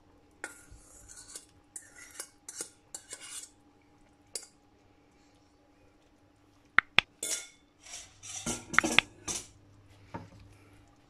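A stainless steel bowl clinking and scraping against the rim of a steel stockpot as pieces of lamb are tipped back into the simmering tomato sauce. Two sharp clinks come about seven seconds in, followed by the loudest stretch of knocking and scraping.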